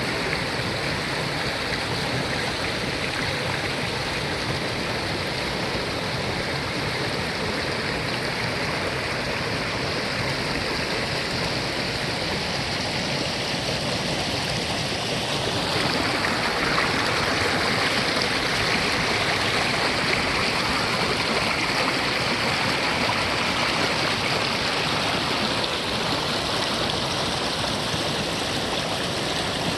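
Mountain valley stream flowing steadily, a continuous wash of running water that becomes a little louder about halfway through.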